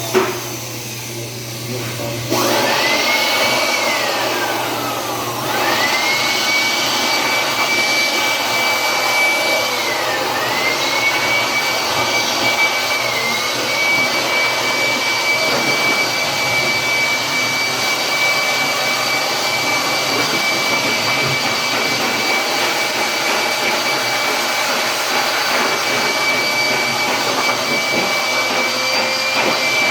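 Dryer motor and fan running with a rushing airflow and a high, steady whine. A click comes right at the start. The motor spins up about two seconds in, runs down, and spins back up around six seconds in, then runs steadily with a couple of brief dips in pitch.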